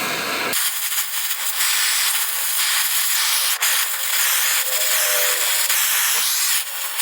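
Oxy-acetylene torch flame hissing steadily while it heats steel rod, the hiss sitting high with little low end; the sound changes abruptly less than a second in.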